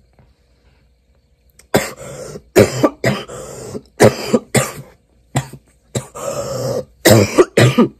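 A young man's coughing fit: about nine hard, harsh coughs in quick succession, starting nearly two seconds in, from a flu cough.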